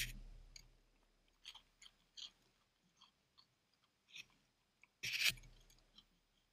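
A dog chewing and crunching food, with scattered short crunches and clicks and a louder burst of crunching about five seconds in.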